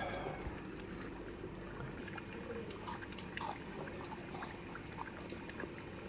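Water trickling steadily, with a few faint clicks.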